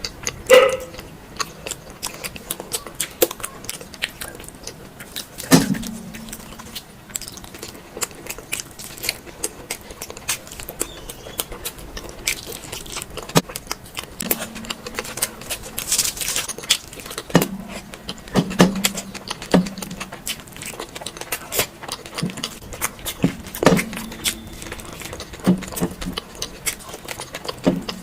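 Close-miked eating sounds: continuous chewing with dense, irregular wet mouth clicks and smacks, and several louder, short low sounds spread through.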